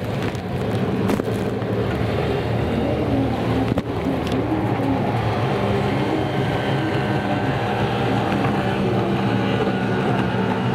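Racing jet ski engines running hard, a steady drone whose pitch rises and falls as the craft turn.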